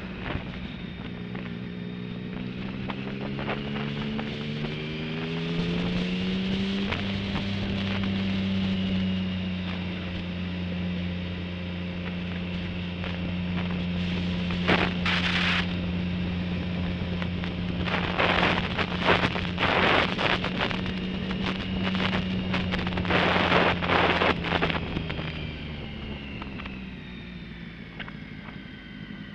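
Motorcycle engine heard from the rider's helmet camera, rising in pitch as the bike accelerates for about the first seven seconds, then running at a steady speed and easing off with falling pitch near the end. Gusts of wind hit the microphone in rough bursts through the middle and later part.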